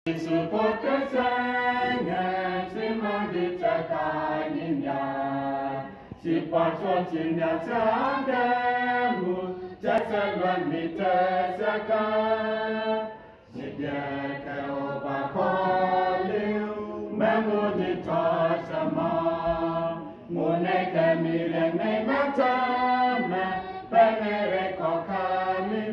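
Small mixed choir of men's and women's voices singing a gospel song in harmony, unaccompanied. It goes in phrases, with short breaks for breath between them.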